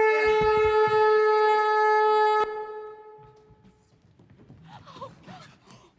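Shrill factory steam whistle blowing one long steady note, the show's signal for a killing, cut off sharply about two and a half seconds in. A low rumble sounds under it in the first second.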